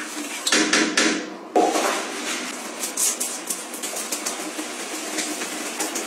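Close-up cleaning sounds: a cloth wiping over a ceramic toilet, then scrubbing foamy cleaner on a glass shower screen. The rubbing is irregular, broken by clicks and knocks.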